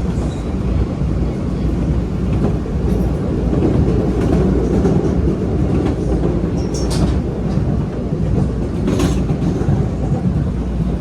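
MBTA Blue Line subway train running between stations, heard from inside the car: a steady low rumble of wheels on the rails. Brief sharp metallic sounds come through it about seven and nine seconds in.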